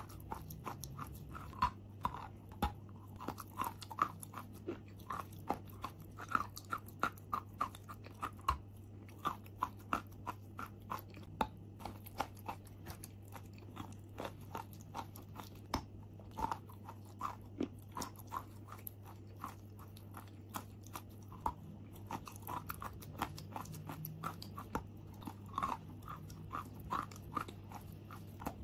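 A lump of chalk being bitten and chewed close to the microphone: a dense, irregular run of short crisp crunches, with a steady low hum underneath.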